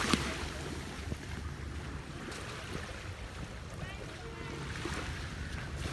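Small waves washing gently onto a sandy shore, with a low wind rumble on the microphone. A single sharp tap sounds right at the start.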